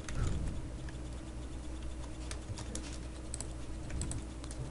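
Computer keyboard typing: scattered, irregular light key clicks over a steady low hum.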